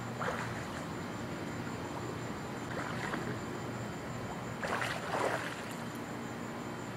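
Swimming-pool water sloshing and lapping, with a few brief louder splashes.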